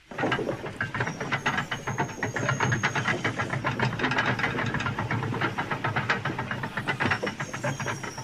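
Railway turntable turning with an engine on it: a dense rattle of clicks and clanks that starts abruptly, with a high metallic squeal about a second in and again near the end.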